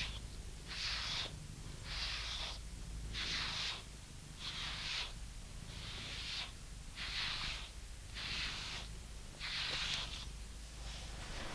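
Grooming brush stroking through a British Shorthair cat's dense coat, a scratchy swish about nine times at a steady pace of roughly one stroke a second.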